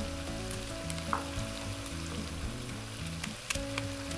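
Sliced onions frying in a good amount of vegetable oil in a pot, a steady sizzle, with a few faint clicks and soft background music underneath.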